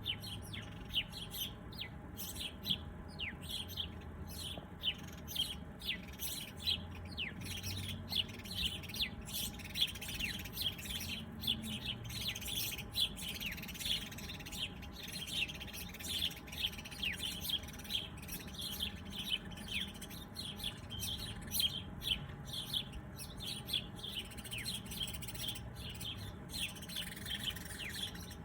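Small birds chirping continuously: a dense stream of short, high chirps, each falling quickly in pitch, overlapping as from several birds.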